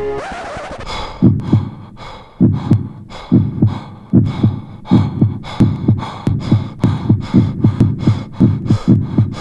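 Heartbeat sound effect: heavy, low double thumps that start about a second in and quicken, coming closer together toward the end. It is preceded by a brief hiss.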